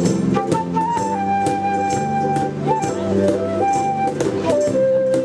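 Live ukulele band playing an instrumental passage: one clean, held melody line stepping between notes over strummed chords, with a steady beat.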